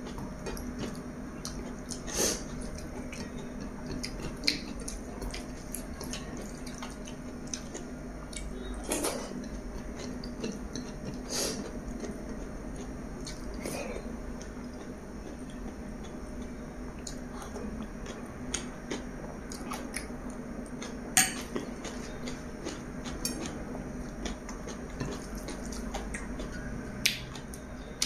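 Close-up eating sounds: chewing, and fingers mixing and picking up chicken biryani rice from a plate, with scattered soft clicks and a few sharp ones, the loudest about three quarters of the way through. A steady low hum runs underneath.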